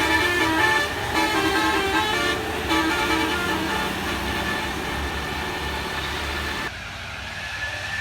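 Bus basuri air horn playing a stepped tune of changing tones over a heavy bus engine's rumble; the tune stops about three seconds in and the engine carries on, with a sudden drop in level near the end.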